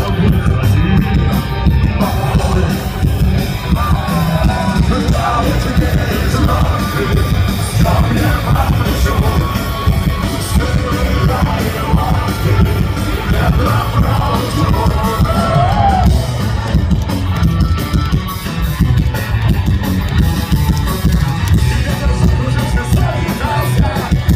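Live rock band playing loudly, with heavy bass and drums under a sung vocal line.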